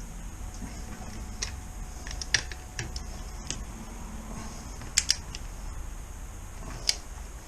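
Scattered sharp clicks and clinks of a torque wrench and socket being handled at the wheel bolts, the loudest a close double click about five seconds in.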